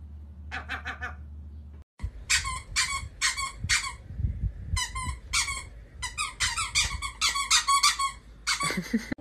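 Short, high-pitched squeaky calls from a pet, repeated about two or three a second for several seconds.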